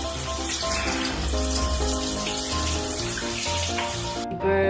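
Steady hiss of running water over background music with a simple melody; the water noise cuts off abruptly about four seconds in.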